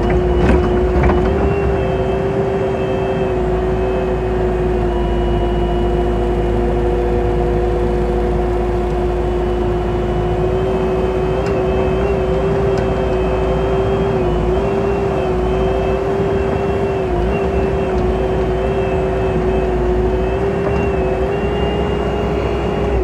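Bobcat 435 mini excavator's diesel engine running steadily under its hydraulic pump, with a high whine over the engine note and small dips in pitch now and then as the boom and arm are worked. The hydraulics are working again after the main pump's drive coupler was replaced.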